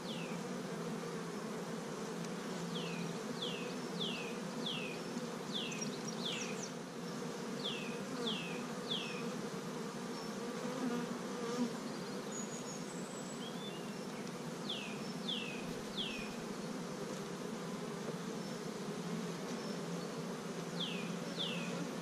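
Honeybees of an opened hive buzzing in a steady hum as the brood frames are inspected. Over it come runs of three to five short, high, falling chirps, several times.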